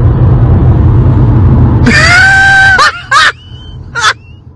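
Loud low rumble of a car at speed heard from inside the cabin. About two seconds in, a person lets out a high scream that falls in pitch, followed by a couple of short yelps as the rumble drops away.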